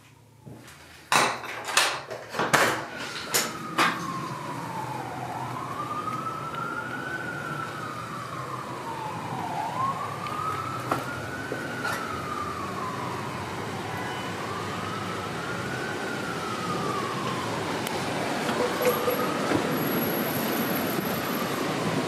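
A few sharp clicks and knocks in the first few seconds, then an emergency vehicle's wailing siren, rising and falling slowly about every four to five seconds, over a steady hiss of street noise.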